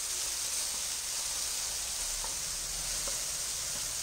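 Onion, garlic and ginger paste sizzling in hot oil in a kadhai: a steady high hiss with a few faint crackles.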